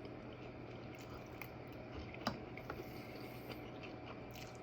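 Faint chewing and mouth sounds while eating French toast, with scattered small clicks and one sharper click a little past two seconds in, over a faint steady hum.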